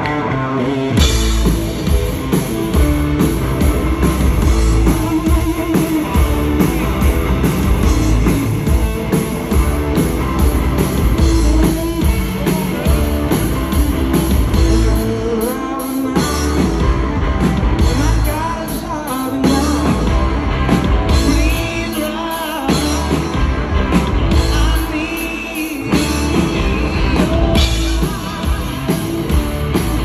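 Live rock band playing loud, with drum kit, electric guitar and singing; the full drums and bass come in about a second in. Recorded from the audience.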